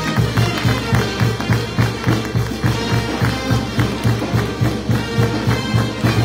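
Peruvian brass band playing a lively tune over a steady, quick bass beat, with people clapping along.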